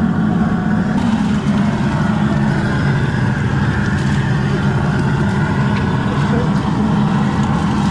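Propane jet burner under a large crawfish boil pot, running with a steady low rush.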